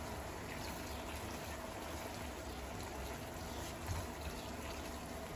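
Pasta and sauce simmering in a frying pan while a spatula stirs through it: a low, steady wet bubbling.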